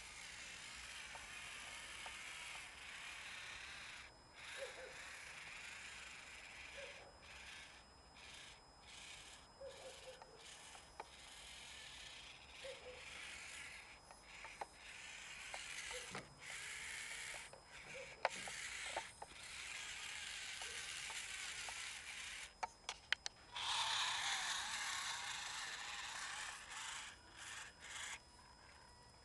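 Losi Micro Crawler's tiny electric motor and gearbox whirring in stop-start bursts as it crawls, with one louder stretch about three-quarters of the way through and a few sharp clicks.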